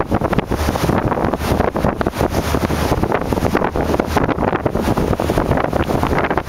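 Wind buffeting the microphone: a loud, gusty rumble.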